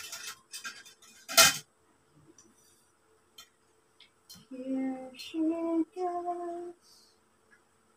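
Metal tubes and fittings of a telescopic clothes rack clicking and clattering as they are handled, with one loud knock about one and a half seconds in. Then a woman hums three held notes.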